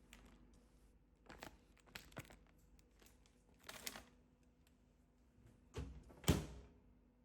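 Food packaging being handled and torn open: a few separate crinkles and rustles, the loudest near the end.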